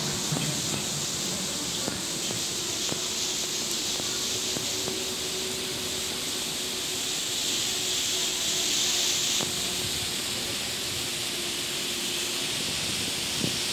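Steady hissing noise with a faint, steady low hum underneath and a few faint ticks.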